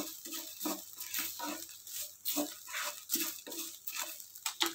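Wooden spatula stirring and scraping dry-roasting curry leaves and spices around a nonstick frying pan, in short strokes about two or three a second, with a sharper knock near the end.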